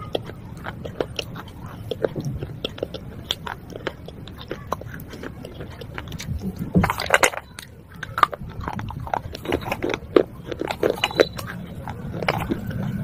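Close-up chewing of broken fired-clay pot shards: many short, sharp crunches and crackles as the brittle pieces break between the teeth. A denser run of crunches comes about seven seconds in.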